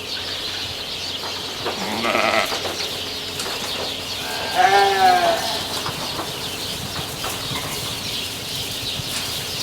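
Sheep bleating twice, short calls about two and a half seconds apart, the second louder.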